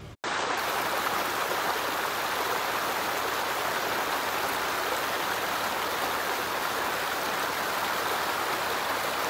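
Shallow stream pouring over a low ledge of stones: a steady rushing of water.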